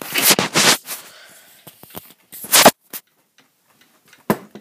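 Rubbing and knocking of close handling in two loud bursts, the first lasting under a second and the second about a second and a half later, then a short quiet and a single sharp click near the end.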